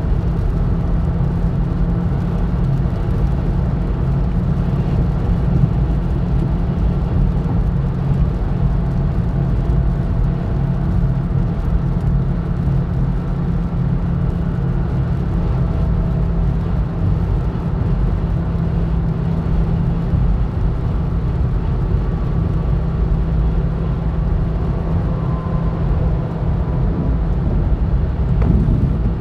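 Steady low road and engine rumble heard from inside a car cabin cruising on the highway at about 80 mph.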